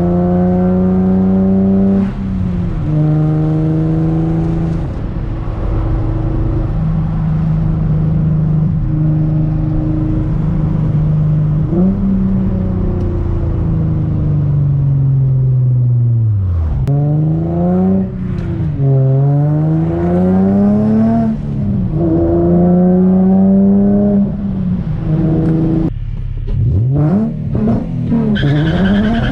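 Infiniti G35 Coupe's 3.5-litre V6 engine running while the car is driven hard, the revs holding, then climbing and dropping sharply several times through the second half as the driver works through the gears.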